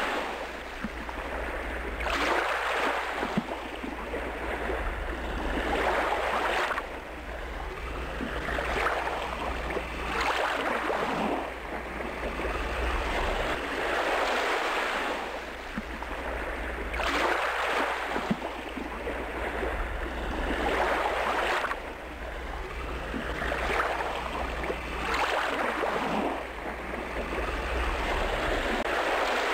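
Water washing and lapping against a boat's hull in irregular swells every second or two, over a steady low rumble.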